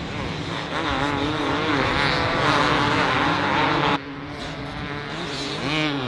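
Several two-stroke motocross bikes racing, their engines revving up and down over one another. The sound drops off abruptly about four seconds in, leaving fainter engines still revving.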